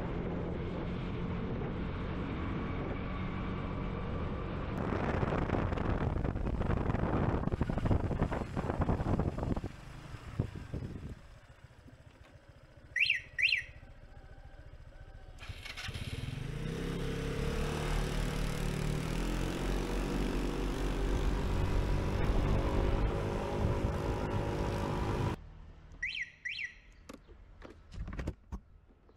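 Motor scooter converted to a petrol-electric hybrid, running along a road with its engine's steady drone. About ten seconds in it falls quiet and a short double chirp sounds. Then it starts running again, its pitch rising, before another quiet stretch with a second identical double chirp and a few ticks near the end.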